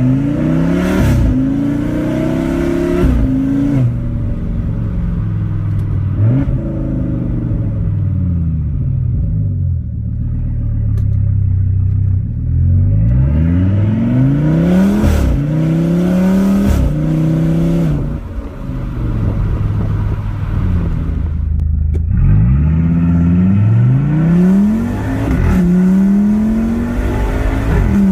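Audi RS6's twin-turbo V10 accelerating hard through the gears several times, its note climbing and dropping back sharply at each upshift, with steadier stretches and falling pitch as it slows between runs.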